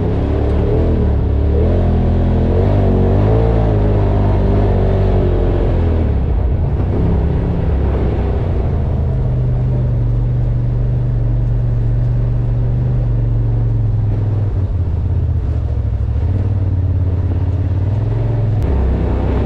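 Quad bike (ATV) engine running while riding, its engine speed rising and falling for the first several seconds, then holding fairly steady.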